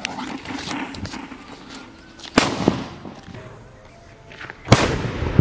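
Fuse of a sutli bomb (a twine-wrapped Saddam 'Atom Bomb' firecracker) hissing as it burns down inside a cement hole, with a sharp knock about two and a half seconds in. Near the end the cracker goes off in one loud bang inside the hole.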